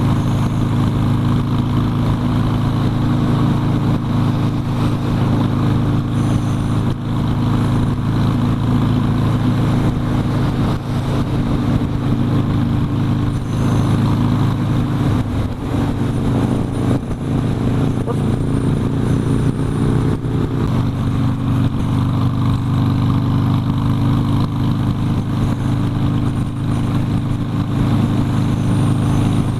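Harley-Davidson Sportster's V-twin engine running steadily under way, its note shifting for a few seconds around the middle of the ride.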